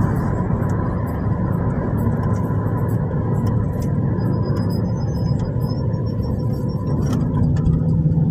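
Taxi car driving at road speed, with steady engine and tyre noise heard from inside the cabin.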